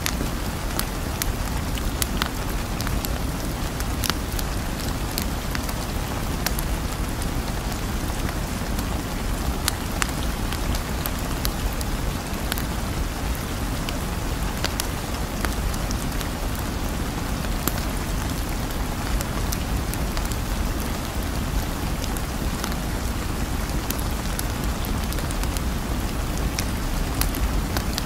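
Steady rain falling: an even hiss full of small, scattered drop ticks, with no change in strength.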